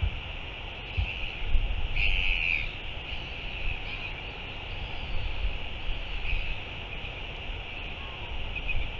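Wind gusting on the microphone, with a brief bird call about two seconds in and a few fainter calls later.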